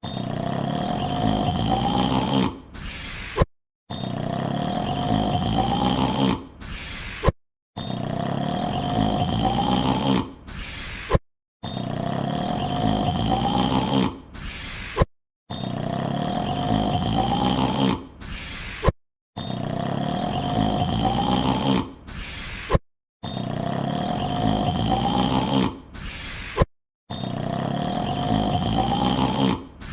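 A man's drawn-out yawn with a pitch that rises through it, the same three-second clip looped about every four seconds. Each repeat is cut off abruptly, followed by a short gap and a click before the yawn starts again.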